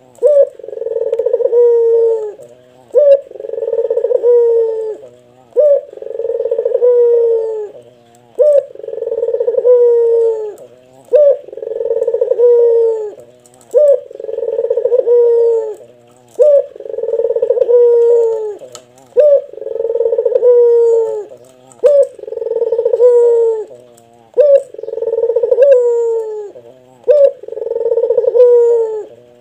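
A Barbary dove (puter) cooing in a deep, bass voice. It repeats the same call about every two and a half seconds: a short clipped note, then a long drawn-out coo that drops in pitch at its end.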